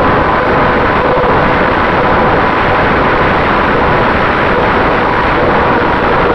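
Finwing Traveler RC plane's electric motor and propeller running steadily in flight, with a faint whine. Air rushes over the onboard camera's microphone, and the wind noise fills the sound.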